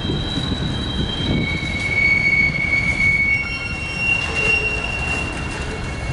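Covered hopper freight cars rolling slowly past, steel wheels squealing on the rails over a low rumble. Several high squealing tones overlap and shift in pitch, loudest about two seconds in.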